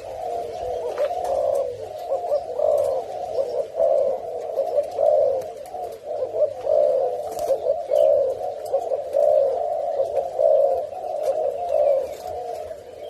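Male spotted dove cooing in courtship, a low hollow coo repeated steadily about once every second and a quarter.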